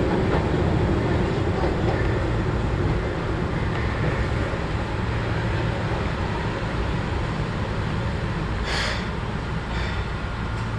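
Keihan Ishiyama-Sakamoto Line tram-train running, heard from inside. A steady low rumble of motors and wheels on rail eases slightly as the train slows for the next station. A brief hiss comes about nine seconds in.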